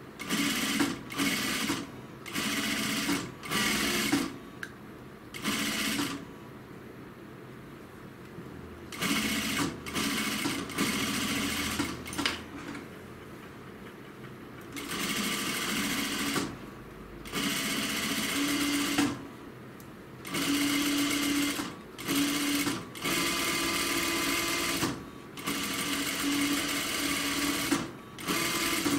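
JUKI industrial sewing machine stitching through a synthetic-leather pocket welt in short runs, stopping and starting about a dozen times. Each run lasts from half a second to about three seconds, with brief pauses while the work is guided.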